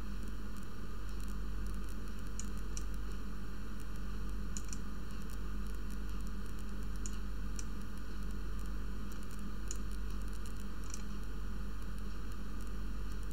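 Steady microphone hiss with a low mains hum, and about eight faint clicks, some in pairs, from a computer mouse stepping through a bridge hand viewer.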